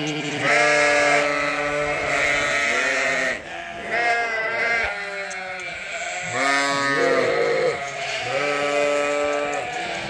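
Sheep bleating over and over: a string of long bleats of different pitches from several animals, some overlapping, with only short gaps between them. The loudest comes about a second in.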